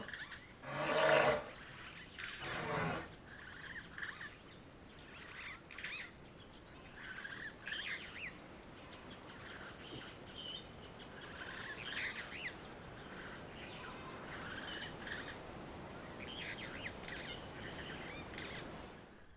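Many faint, brief bird chirps over a steady outdoor background hiss. In the first three seconds two short, louder animal calls come before them.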